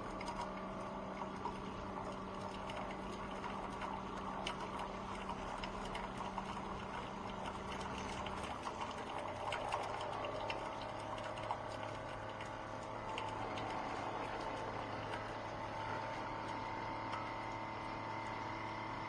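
Hamilton Beach FlexBrew Trio coffee maker running a brew cycle: a steady pump hum with crackling, bubbling water, the hum dropping to a lower pitch about eight or nine seconds in.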